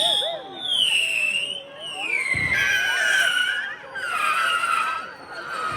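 Whistling fireworks shrieking: a run of high-pitched wails that follow one after another, each falling in pitch over about a second, sounding like a baby crying.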